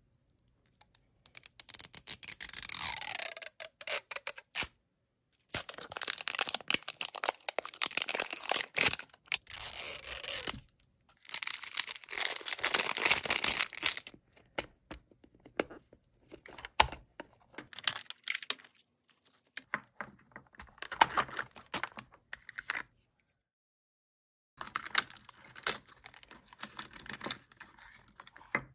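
Plastic wrapping being crinkled and torn off a Toy Mini Brands capsule ball, then the plastic ball handled and opened and the printed wrappers inside rustled and unfolded. It comes in several spells of dense crackling rustle with clicks, separated by short pauses, growing sparser in the second half.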